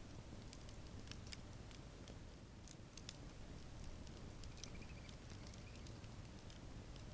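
Campfire crackling softly: scattered small pops and snaps over a low steady rumble, with a faint brief wavering note in the middle.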